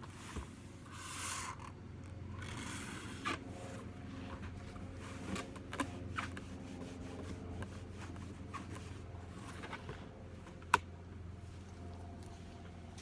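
Handling noise from fitting a lid onto a wrapped beehive: two short scraping swishes in the first few seconds, then scattered light knocks and clicks, with one sharp click about three-quarters of the way through. A steady low hum runs underneath.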